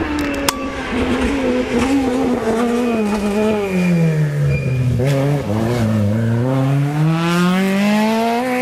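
Rally car engine coming off the throttle into a bend, its pitch falling for about four seconds, then accelerating out of it with the pitch climbing steadily. There is a sharp crack about half a second in.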